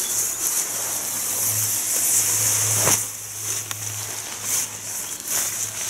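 Nylon tent fabric rustling and crinkling as it is pulled out of its stuff sack and shaken out by hand, with a few sharper crackles, over a steady low hum.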